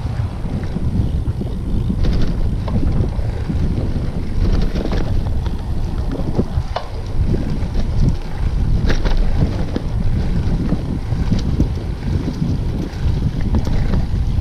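Wind buffeting the microphone of a camera on a moving bicycle: a steady low rumble, with a few light clicks and rattles scattered through it.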